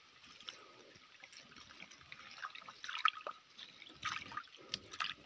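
Small splashes and drips of water as a hand scoop net is worked through the water of a fish trap, coming irregularly with a few louder splashes about three seconds in and again near the end.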